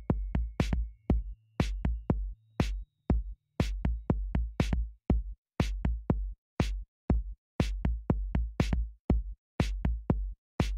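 Electronic music: a sparse drum-machine beat of sharp hits with a deep kick, about two to three a second, over a low hum that fades in the first few seconds.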